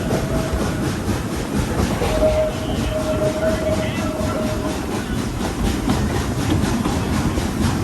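Passenger coach riding behind the Tweetsie No. 12 steam locomotive, with a steady rumble and rattle of its wheels on the track. A faint steady high tone rises above the rumble for a couple of seconds in the middle.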